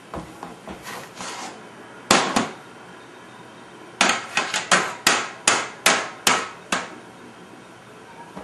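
A toddler striking a kitchen utensil against a small metal pot: two loud clanks about two seconds in, then a quick run of about ten clanks, roughly four a second.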